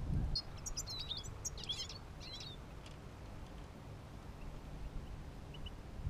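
Small finches giving a quick string of high chirping calls for about two seconds near the start, then two faint chirps near the end, over a low steady rumble.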